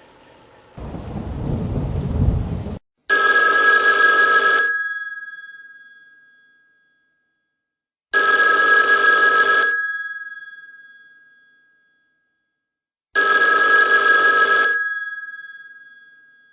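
A low rumbling noise that swells for about two seconds and stops abruptly, followed by a telephone bell ringing three times, each ring lasting about a second and a half with a ringing fade, about five seconds apart.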